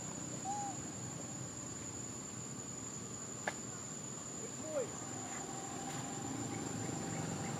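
Outdoor ambience: a steady high-pitched insect drone, with two short calls from an unseen animal, one about half a second in and a falling one near the middle, and a single click in between.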